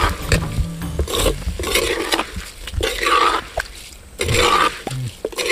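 A spoon stirring and scraping rice into half-cooked chicken in a clay pot, in a string of short strokes with a faint sizzle.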